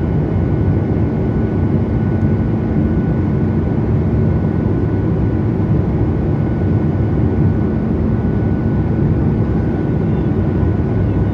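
Steady cabin drone of a Boeing 737 airliner in cruise: jet engine and airflow noise heard from inside the cabin, a low rushing sound with a faint steady whine above it.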